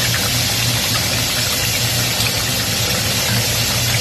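Potato slices deep-frying in a pan of hot oil, a steady sizzle, over a steady low hum.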